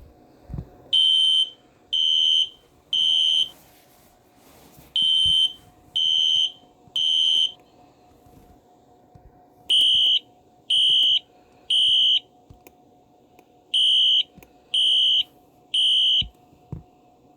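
Smoke alarm sounding the temporal-three fire evacuation signal: three loud, high-pitched beeps, a pause, then the group again, four times over.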